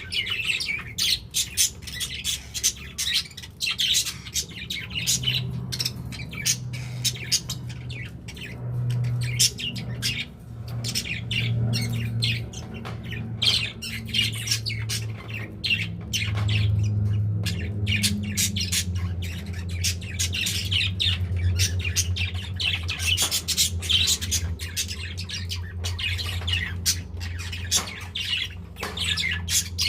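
Pet budgerigars chattering and squawking continuously in many short, rapid calls. A low steady hum runs underneath from about five seconds in.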